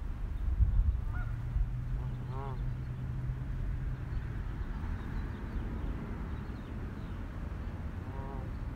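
Geese honking a few times: a short call about a second in, a fuller honk a little later and another near the end, over steady outdoor background noise with a low rumble.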